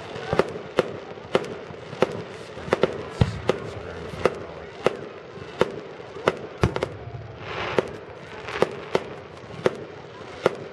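Aerial fireworks display: a continuous run of sharp bangs from shells bursting, about two a second at uneven spacing.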